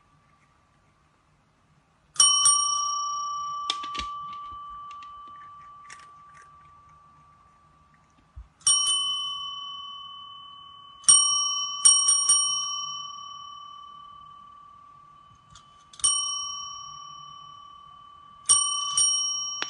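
Small metal bell struck about nine times, in single strokes and quick pairs a few seconds apart, each ring fading slowly.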